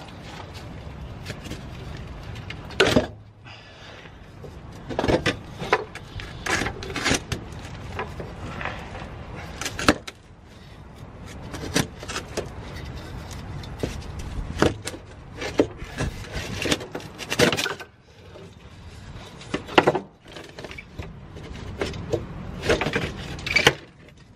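Old exhaust downpipe being worked free from under a Ford Focus ST: irregular metallic clunks, knocks and scrapes as the pipe is twisted and pulled back against the underbody, with a few sharper bangs.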